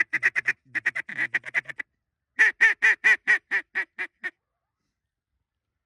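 Duck quacking: a fast run of loud quacks, then after a short pause a run of about nine quacks that fall off in loudness and spread out.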